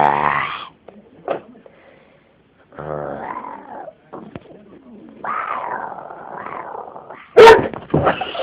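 A woman making weird animal-like calls at a dog while the dog growls and yips back. There is a loud, short bark-like burst near the end.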